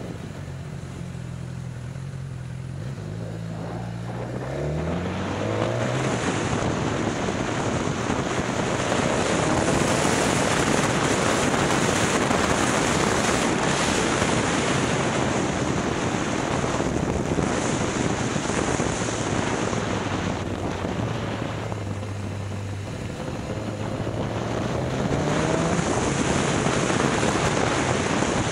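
BMW S1000XR's inline-four engine pulling away from low speed, its note rising about four seconds in, then heavy wind rush on the microphone as the bike gathers speed. The wind eases and the engine shows through again as the bike slows a little past the middle, then the engine note rises again near the end as it accelerates.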